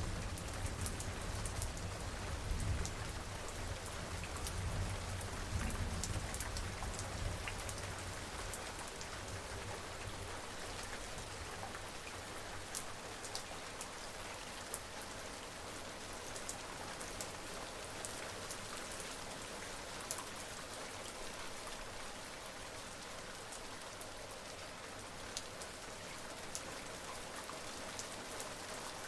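Steady rain falling, with individual drops ticking sharply on a surface. A low rumble of distant thunder dies away over the first several seconds.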